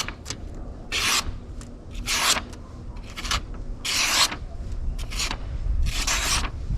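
Oerla OLF-0027 pocket knife blade slicing in about five short, hissy strokes, roughly one a second: a sharpness test straight out of the box, with the blade cutting easily.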